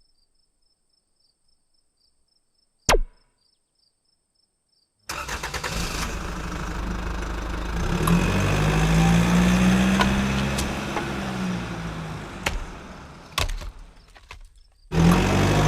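A single sharp click, then about five seconds in a vehicle engine comes in and runs, rising in pitch and then falling away before dropping out briefly near the end.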